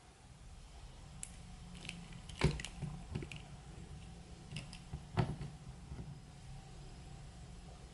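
Plastic packaging and an action figure being handled: scattered clicks, crinkles and knocks, with two louder knocks about two and a half and five seconds in, over a steady low hum.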